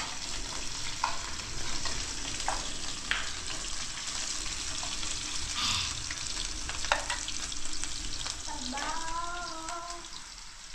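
Cut potato strips frying in a pan of hot oil, sizzling steadily, with a few light clicks scattered through.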